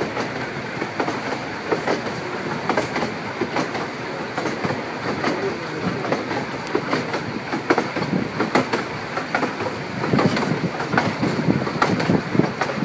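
Open-sided narrow-gauge railway carriage running along the track: a steady rumble of wheels on rail with irregular clicks, knocks and rattles, a little louder about ten seconds in.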